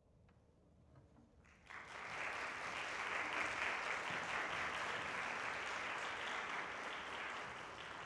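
Audience applauding at the end of an orchestral piece. The clapping starts suddenly about two seconds in, holds steady, and begins to fade near the end.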